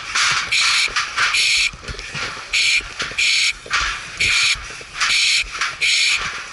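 Firefighter breathing fast and hard through a breathing-apparatus mask, the regulator hissing sharply with each breath, about one breath a second, under the exertion of a stair-tower climb.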